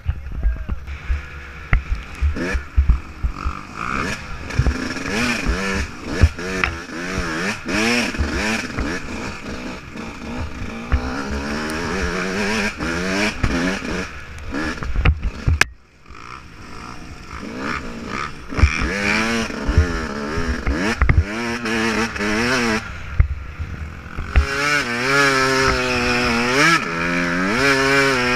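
Yamaha YZ125 125cc two-stroke dirt bike engine heard from on board, revving up and falling back over and over as it rides rough trail, with knocks and clatter from the bumps. The sound drops out briefly about halfway through.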